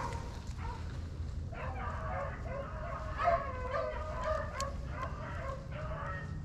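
Beagles baying on a rabbit's trail: a run of repeated, overlapping hound calls starting about a second and a half in, over a steady low rumble.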